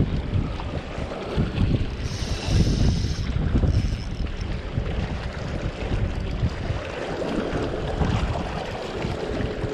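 Wind buffeting the microphone in uneven gusts, with sea water washing among shoreline rocks and a brief hiss about two seconds in.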